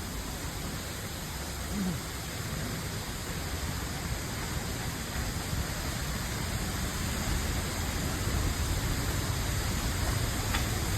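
Steady rush of a waterfall's heavy flow of falling water, growing gradually louder.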